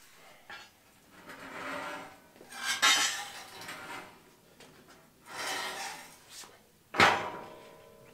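Metal Garvin Wilderness roof rack scraped and dragged across a concrete floor in a few pulls, then set down flat with a loud metallic clang about seven seconds in that rings on briefly.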